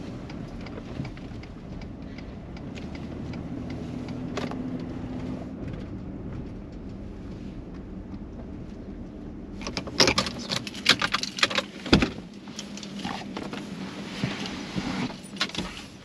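Steady low engine and road rumble heard inside a Ford pickup's cab while driving. From about ten seconds in, a run of sharp clicks and knocks follows, the loudest about two seconds later: the truck being parked, keys handled and the door opened as the driver climbs out.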